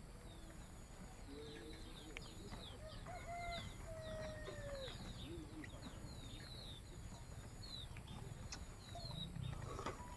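Faint birdsong: many quick, high chirps repeating throughout, with a few lower, longer calls about three to five seconds in.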